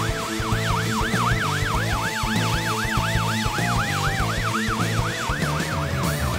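Ambulance siren on yelp, a fast rise-and-fall about four times a second, over background music.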